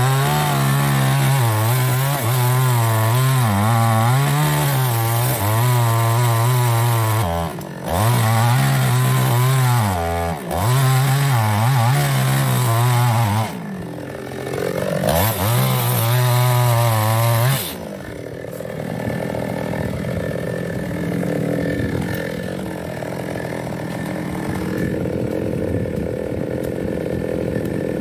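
New West 628 two-stroke chainsaw cutting into an old mahogany trunk at full throttle, the engine note wavering as the chain bites, with a few brief drops in throttle and a rev back up. About two-thirds through, the saw becomes quieter and steadier.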